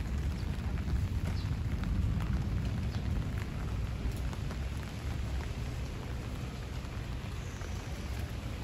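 Light rain with wind rumbling on the microphone and scattered ticks of falling drops.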